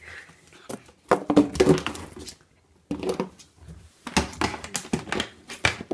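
A Shiba Inu mouthing and biting an empty 2-litre plastic water bottle: the plastic crackles and clicks in irregular bursts, loudest about a second and a half in.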